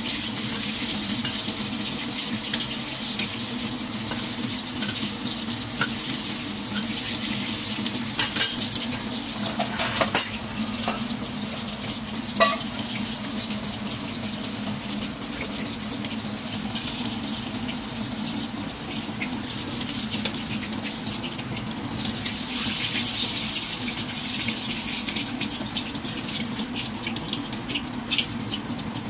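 Puff-pastry empanadas deep-frying in hot oil in a steel wok: a steady sizzle. There are a few sharp knocks of a metal ladle against the wok, the loudest about twelve seconds in, more clinks near the end, and a steady low hum underneath.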